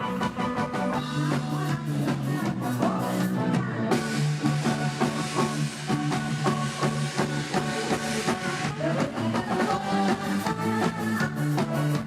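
A live Isan-pop band playing an instrumental passage without singing: a drum kit keeping a steady beat under guitar and bass notes.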